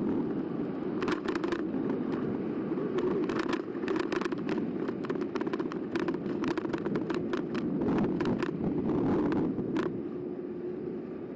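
Ride noise picked up by a camera mounted on an eBike in motion: a steady rumble with frequent short clicks and rattles, easing slightly near the end.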